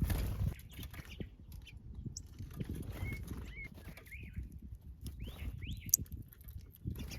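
Small birds chirping in short rising and falling calls, several in a row in the middle, over steady low rustling and tapping. A brief loud rustle opens it.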